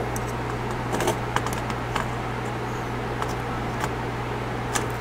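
Multimeter test probe tips tapping and scraping on transistor leads and solder joints of a circuit board: scattered small clicks, several a few seconds apart, over a steady low hum.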